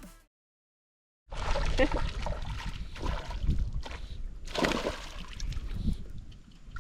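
Water splashing and sloshing with irregular bursts, starting after a second of silence once music cuts out.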